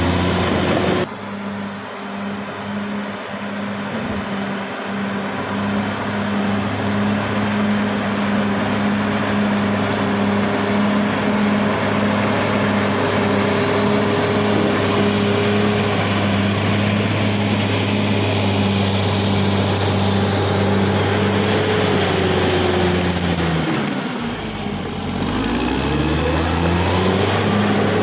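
CAT D6R XL bulldozer's diesel engine running steadily under load. About 24 seconds in, the revs dip briefly and then climb back up.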